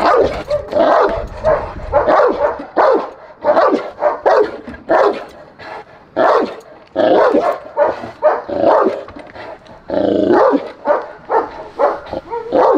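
Cane Corso barking over and over, about two barks a second, with a short break about nine and a half seconds in.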